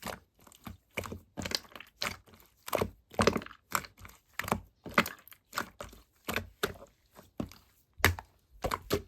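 An irregular series of sharp taps and clicks, about two a second, with short silences between them.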